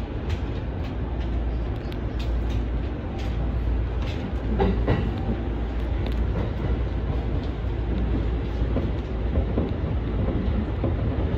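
Electric commuter train running, heard from inside at the front: a steady low rumble with wheels clicking over rail joints now and then.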